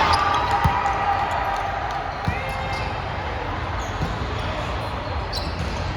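A few dull thuds of a volleyball hitting the gym floor or being struck, over faint players' voices.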